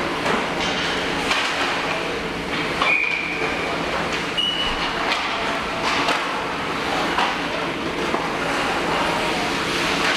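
Ice hockey rink during practice: skates scraping the ice and sticks and pucks clacking against ice and boards, over a steady hum, with distant voices.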